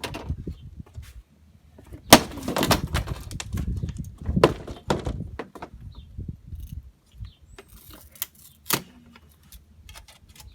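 Hard blows smashing old circuit boards: a sharp crack about two seconds in is the loudest, with further hits around four and a half seconds and near nine seconds and smaller clatters of pieces in between.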